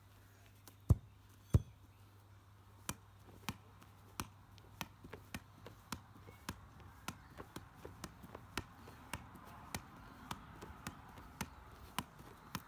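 A light football being juggled on the knees: steady taps of the ball off the knees, about two a second, after two heavier thumps about a second in.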